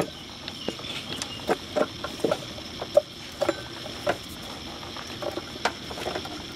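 Scattered irregular clicks and light knocks as the slackened old power steering belt is worked off the pump pulley by hand.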